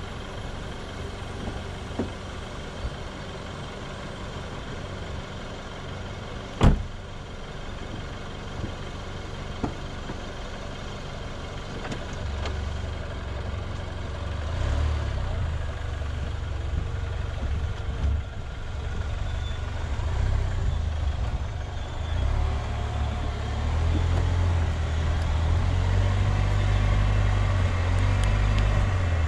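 Land Rover Freelander 2 driving off-road on dirt and sand, heard from beside the front wheel: a steady rumble of engine and tyres, with one sharp knock about seven seconds in and a few lighter ticks. The low rumble grows louder from about twelve seconds on.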